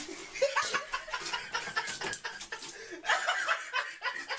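A person laughing: several short chuckles one after another.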